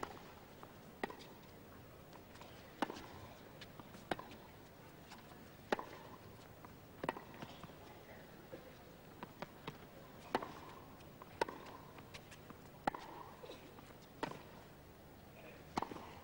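A tennis ball struck back and forth with rackets in a long rally, starting with a serve: a sharp pock about every second and a half, about a dozen in all, with fainter taps between the strokes.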